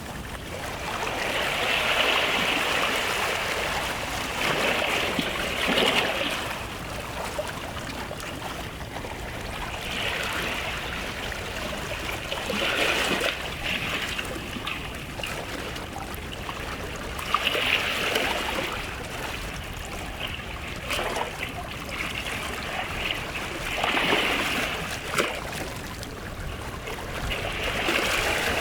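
Small sea waves washing up onto a beach and drawing back, swelling about every three to five seconds.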